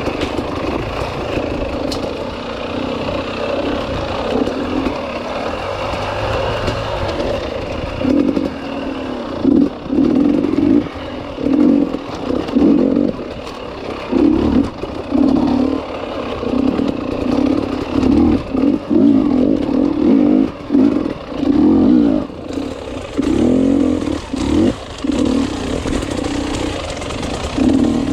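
Enduro motorcycle engine running at low revs for the first several seconds. From about eight seconds in it revs in short, repeated bursts as the throttle is opened and shut.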